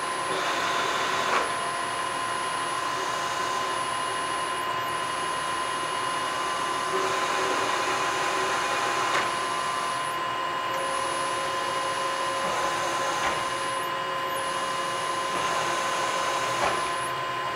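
Fortworth CS-VBM-5VL bed-type milling machine's table power feed running, traversing the table along and across at varying feed rates and rapids. A steady motor whine and hum whose sound steps and changes every few seconds as the feed is changed.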